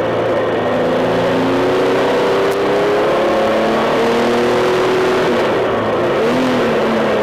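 Triumph Tiger 1200's three-cylinder engine pulling hard under acceleration, its pitch climbing in steps, with a brief dip near the end. Heavy wind rush over the bike-mounted microphone at speed.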